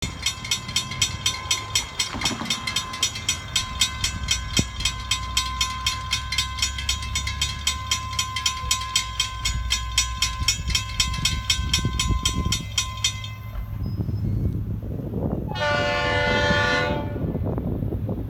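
Railroad grade-crossing warning bell ringing rapidly and steadily as the crossing gates come down. It stops about 13 seconds in. Then come the rumble of an approaching Florida East Coast Railway diesel locomotive and one horn blast of about a second and a half.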